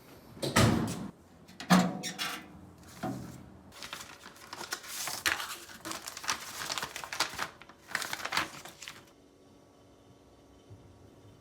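A series of irregular thumps and rustling, scraping noises, loudest near the start, stopping about nine seconds in.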